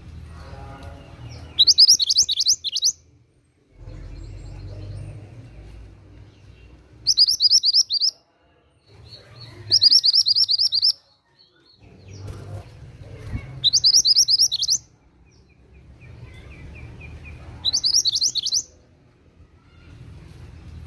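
Mantenan gunung singing: five short, fast trilled phrases of rapid high notes, each about a second long, repeated every three to four seconds. Faint low background noise fills the gaps between phrases.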